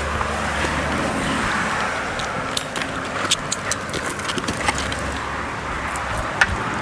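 Steady outdoor background noise with a low rumble underneath and scattered light clicks and taps.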